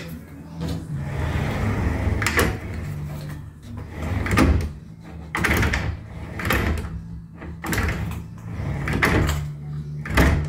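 Pocket door being slid along its overhead aluminium track, the hanger wheels rolling, with a string of knocks and clunks about every second or two as the door is moved and meets the newly adjusted stop and holding clip.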